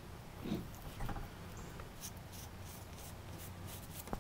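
Paintbrush bristles scratching lightly over corrugated cardboard as gesso is brushed and feathered out, a run of short, faint strokes.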